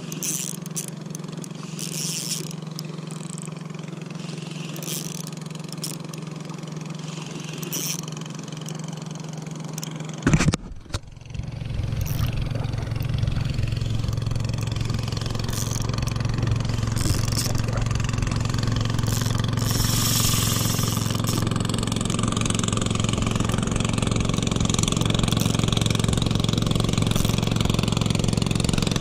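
Small fishing boat's engine running steadily, with a steady low hum; after a break about ten seconds in it is louder and grows gradually nearer.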